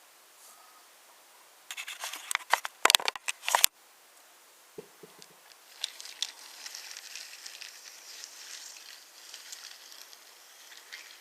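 Wooden toy trains on a wooden railway track: a quick cluster of sharp wooden clicks and knocks about two seconds in, then a light, steady rattling clatter of the wooden trains on the track from about six seconds on.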